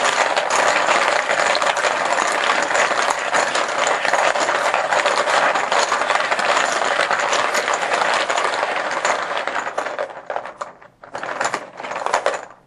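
Plastic poker chips being mixed together, a dense, continuous clatter of many small clicks. Near the end it breaks into two short bursts and then stops.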